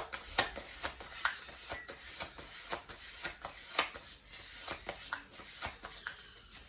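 A tarot deck being shuffled by hand: a quick, irregular run of soft clicks and slaps of card against card.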